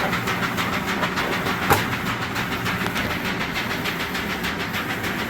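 DTF roll-film printer and its powder shaker unit running together: a steady fast, even rattle over a low hum as the shaker vibrates the film to knock off excess adhesive powder. A single sharp click about two seconds in.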